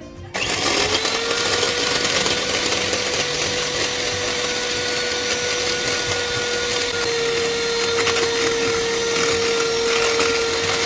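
Electric hand mixer starting up and running at a steady whine, its twin wire beaters whipping non-dairy whipping cream in a glass bowl as the cream thickens.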